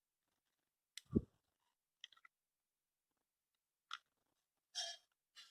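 Sparse handling noises from plastic over-ear headphones and a cloth cover: a dull thump about a second in, a few light clicks, and soft rustles near the end.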